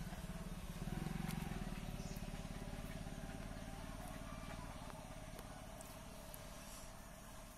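A motor engine running with a low, fast-pulsing rumble, loudest about a second in and then fading away.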